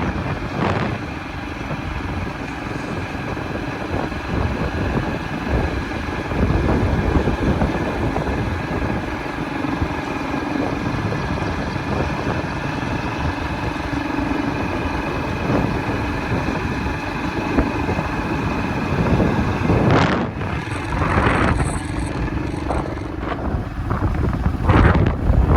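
Wind buffeting the microphone in a continuous low rumble, with a few sharp knocks near the end.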